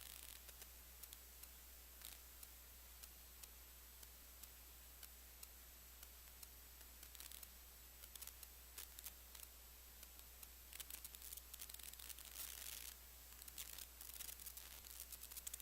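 Near silence: a faint steady hum of room tone with scattered faint clicks, which come thicker and a little louder in the last few seconds.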